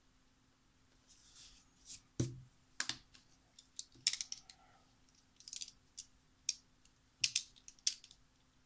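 A series of sharp clicks and taps from small craft tools being handled on a tabletop, with one heavier knock about two seconds in.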